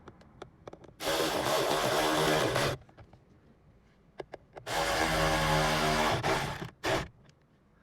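Cordless drill-driver running in two bursts of about two seconds each, with a short blip near the end: driving in screws, here the mounting screws of a new heater blower fan.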